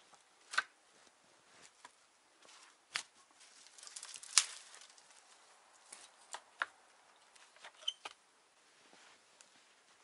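Wooden poles and branches being handled on a tipi frame: scattered sharp knocks and cracks of wood, the loudest about four and a half seconds in, with rustling and footsteps in snow in between.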